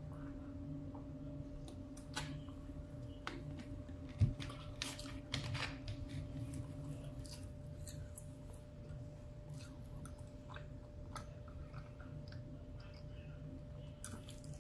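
A person chewing food with the mouth close to the microphone: scattered small wet clicks and smacks. A single thump about four seconds in, over a faint steady hum.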